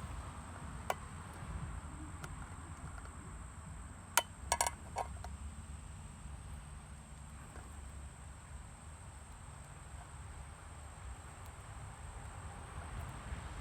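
Pocket-knife can-opener blade cutting around the lid of a tin can in short prying strokes, giving a few sharp metallic clicks: one about a second in and a quick cluster around four to five seconds in, over a low steady rumble.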